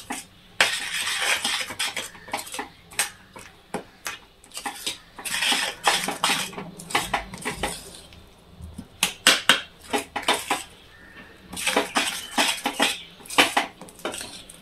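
Metal spoon scraping and clinking against a stainless steel pan, stirring a thick sesame, peanut and jaggery mixture in quick, irregular strokes.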